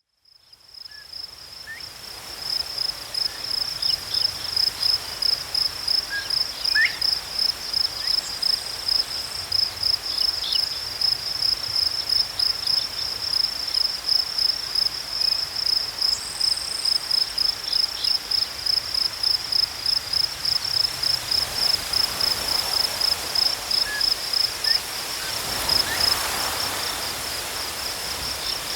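Crickets chirping in a steady, high-pitched rhythm of about two pulses a second, fading in over the first few seconds. A few faint short calls sound beneath them.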